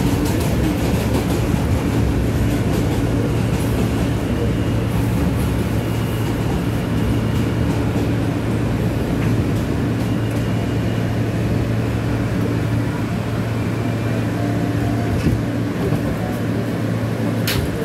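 New York City Subway J train car on elevated track heard from inside: a steady running rumble with a constant low motor hum as the train rolls along and slows into a station. The deepest rumble eases off near the end, and there is a single sharp click just before the end.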